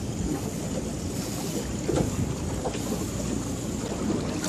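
Steady wind noise on the microphone over sea water washing against the side of a boat.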